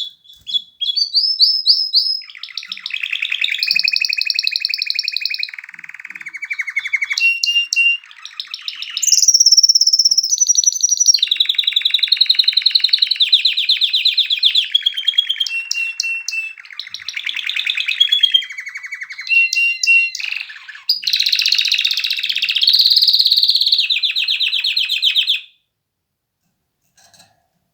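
Domestic canary singing a long song of rapid rolls and trills that switch to a new pitch and pattern every second or two, then stop suddenly near the end.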